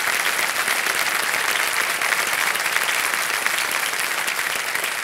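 Studio audience applauding: many hands clapping steadily, easing off a little near the end.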